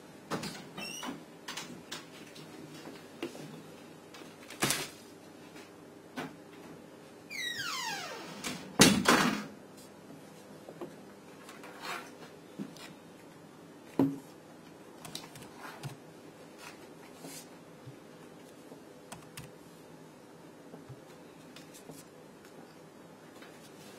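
Scattered knocks and clicks in a small room. About seven seconds in comes a scrape falling in pitch, then the loudest thump.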